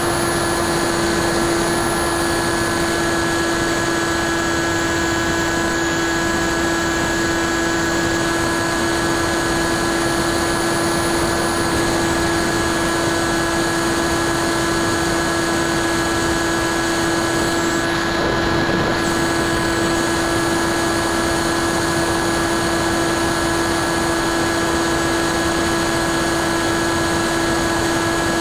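Bixler 2 RC plane's brushless electric motor (NTM 35-30A 1400kv) spinning a 9x6 propeller at a steady throttle, heard from the onboard camera: a steady whine holding one pitch over a constant hiss.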